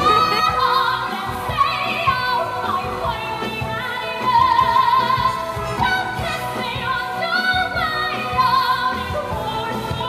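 A musical-theatre song: a singer holding notes with strong vibrato over band accompaniment.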